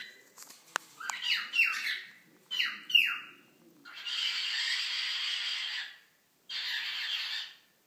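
Cockatiel calling: four quick falling chirps, then two long, harsh, noisy squawks, the first about two seconds long and the second about one second.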